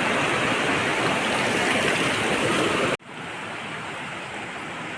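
Waterfall's falling water rushing steadily. About three seconds in it cuts off abruptly, leaving a much fainter steady hiss.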